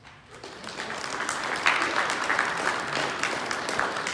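Audience applauding in a hall, building over the first couple of seconds and then carrying on steadily.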